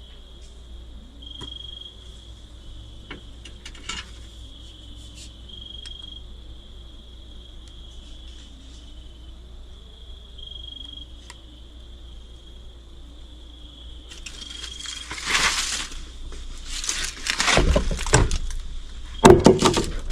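Night insects, crickets, trilling steadily, with a few faint clicks. In the last few seconds loud rustling and crunching noises come in and drown them out.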